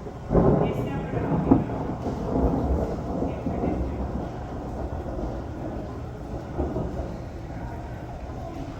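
Thunder: a sudden crash about a third of a second in, a sharp crack about a second later, then a long rolling rumble that slowly fades.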